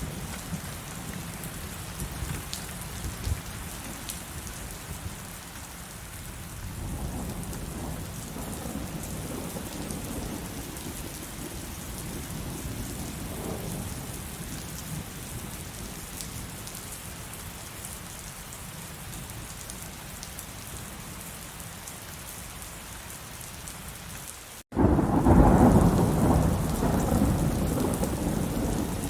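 Heavy rain falling steadily, with low rolling thunder in the middle. A little before the end, after a split-second drop to silence, a loud clap of thunder breaks in and rumbles away.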